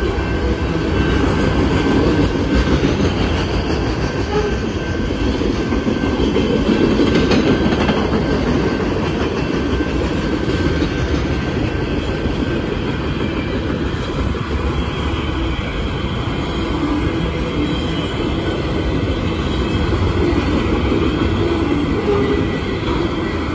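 Freight train of enclosed autorack cars rolling past: a steady rumble of steel wheels on rail.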